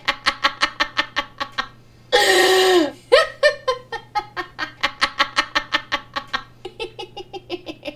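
A woman laughing hard, a fast run of 'ha-ha-ha' pulses about five a second, broken about two seconds in by a loud shrieking laugh.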